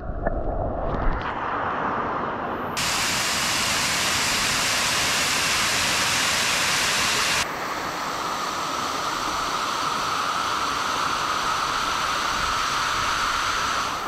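Rushing water of a waterfall, heard as a steady loud hiss. Its tone changes abruptly twice, near three seconds in and again past the middle.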